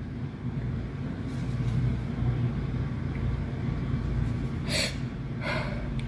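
A steady low rumble, with a girl's two short, sharp intakes of breath near the end, like the gasps that build up to a sneeze.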